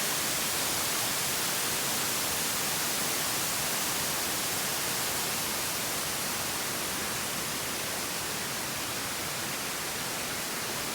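Oshinkoshin Falls, a large waterfall, giving a steady, loud hiss of falling water, easing off slightly in the second half.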